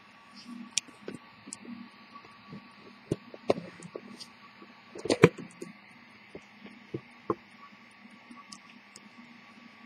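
Irregular clicks and knocks of a handheld camera being picked up and turned around, the loudest cluster about five seconds in, over a steady low hum.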